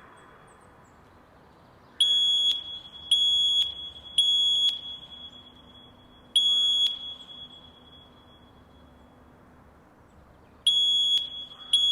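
Fire alarm sounding short, high-pitched steady tone pulses of about half a second each, each ringing on briefly after it stops. Three come about a second apart, a fourth about two seconds later, and after a pause of about four seconds two more follow near the end. This is the alarm tone that a voice-evacuation fire alarm plays between its spoken evacuation messages.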